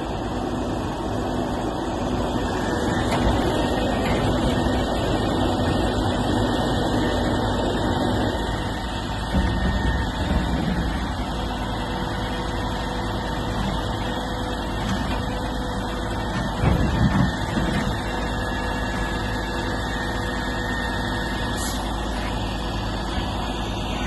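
Heavy truck's engine running steadily to drive a hydraulic knuckle-boom log loader, a little louder for the first several seconds and then settling. Two brief, louder low bumps come about ten seconds in and about seventeen seconds in as the grapple works the logs.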